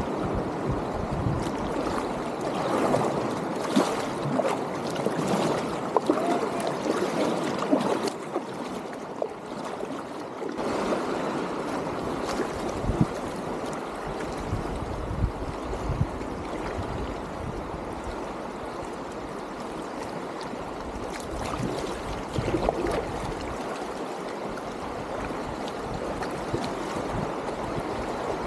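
Shallow river rapids running over rocks, heard close from a packraft floating through them, with scattered short knocks.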